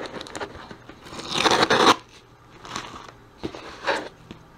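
Fingers picking and scratching at packing tape on a cardboard box, with small crackles and clicks and one longer tearing rasp about a second in, then a few lighter scrapes.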